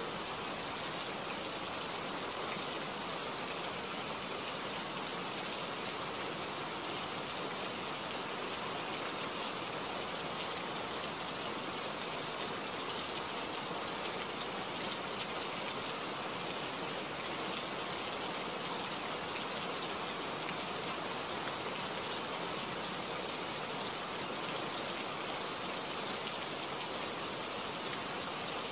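Steady forest rain: an even, unbroken hiss of falling drops that holds at one level, with no thunder.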